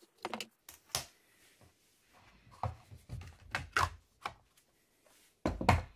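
Plastic clicks and knocks from an airsoft rifle's body being fitted back together by hand, with a louder clunk near the end.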